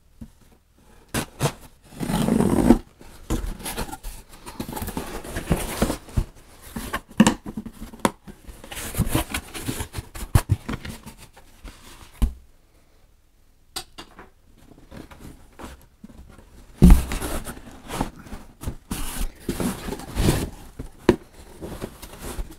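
Cardboard shipping box being opened by hand: packing tape slit and torn, flaps scraping and rustling, and a smaller cardboard box pulled out, with scattered sharp knocks, the loudest about 17 seconds in.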